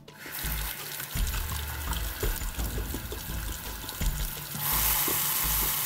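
Tap water running into a sink basin, a steady splashing hiss that grows louder about four and a half seconds in.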